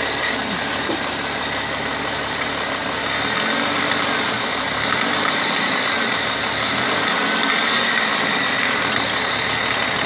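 Car engine idling with its air intake removed, the open throttle body drawing in air with a steady hiss and a steady high whistle while water mist is sprayed in to decarbonize the engine.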